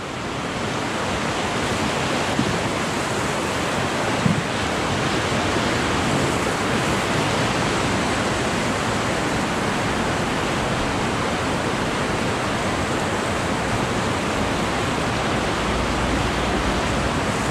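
Whitewater rapids of the Ocoee River rushing and churning around a raft, a steady loud wash of water noise that swells over the first second.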